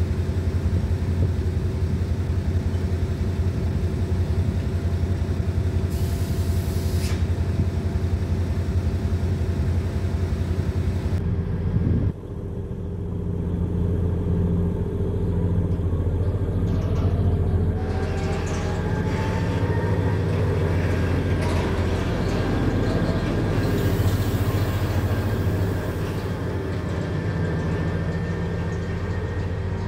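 A diesel shunting locomotive's engine running with a steady low drone. Partway through, a whine rises in pitch and then holds steady as the engine works.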